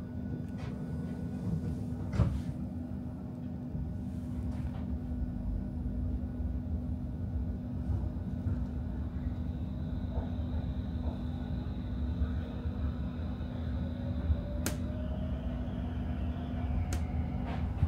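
Interior of a Stockholm metro C30 train car standing and then pulling away: a steady low rumble and hum, with a slowly rising whine from the traction motors starting about two-thirds in as the train accelerates. A few short knocks along the way.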